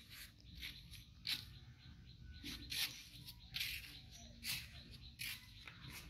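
Soft rustles and scratches of fabric being handled, short and irregular, about one a second.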